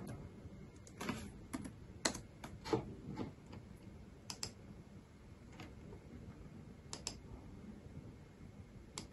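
Laptop keyboard typing: a quick run of keystrokes in the first three seconds or so, then a few single clicks spaced out over the rest.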